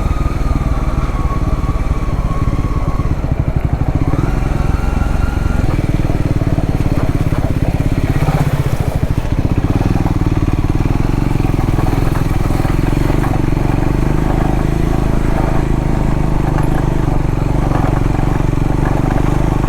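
Triumph Scrambler 400X's single-cylinder engine running while riding, its note changing pitch a couple of times as the revs change.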